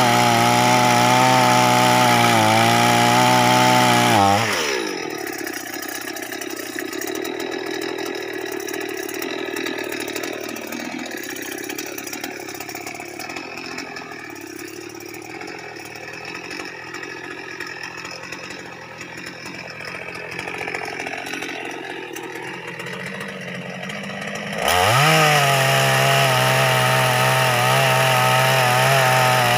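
Petrol chainsaw cutting through a log at full throttle. About four seconds in it drops to a quieter, uneven idle. Near the end it revs back up and cuts again.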